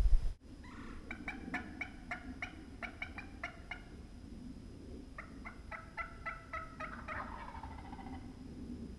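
Wild turkey yelping: two runs of quick, evenly spaced yelps, about five a second, the second run trailing off lower near the end. Before them, a loud low rumble cuts off abruptly just under half a second in.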